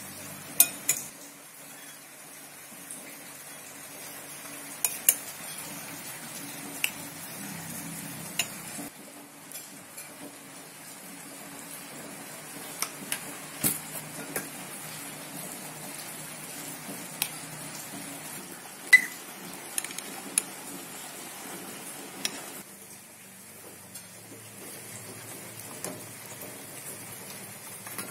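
Metal spoon stirring shredded cabbage and carrot with mayonnaise in a glass bowl, with irregular sharp clinks of the spoon against the glass, the loudest about two-thirds of the way through.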